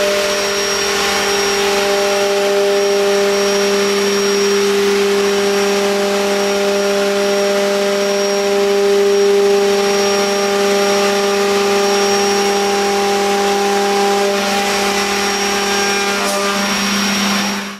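CNC router spindle cutting a curved profile through a black sheet panel: a steady whine over a hum, with the rushing hiss of the machine's vacuum suction.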